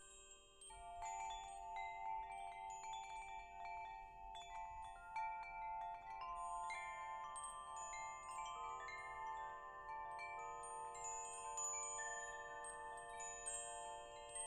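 Wind chimes ringing: many clear tones struck at random, overlapping and ringing on for seconds. The sound grows fuller and louder about a second in.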